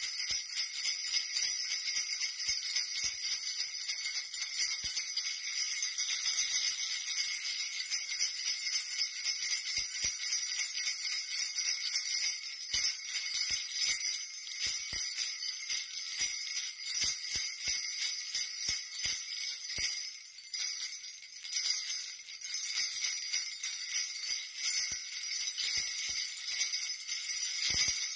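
A hand-held stick of sleigh bells shaken continuously: a steady, bright, dense jingling that eases off briefly about twenty seconds in, then picks up again.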